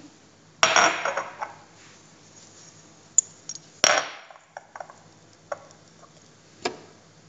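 Glass jar and kitchen utensils handled on a countertop: a short rattle about half a second in, then a series of sharp clinks and knocks, the loudest around four seconds in.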